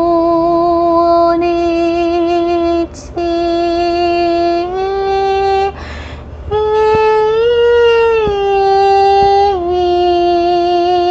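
A woman singing in tongues, holding long wordless notes with slight vibrato and stepping between a few pitches. She breaks off briefly for breath about three and six seconds in.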